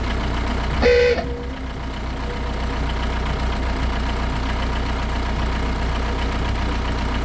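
The 2005 VW Jetta TDI's 1.9-litre four-cylinder turbodiesel idling steadily, with a short blast of the aftermarket electric ooga horn about a second in.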